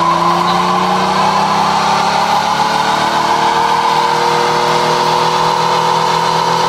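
Pontiac Firebird doing a burnout: the engine is held at high, steady revs, creeping slightly higher, while the rear tyres spin in place on the asphalt.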